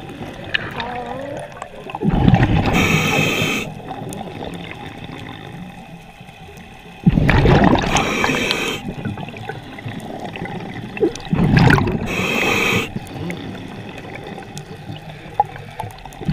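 Scuba diver breathing through a regulator underwater: an inhale hiss and a rush of exhaled bubbles about every four to five seconds, three full breaths with a fourth starting at the end. Quieter bubbling and gurgling carries on between breaths.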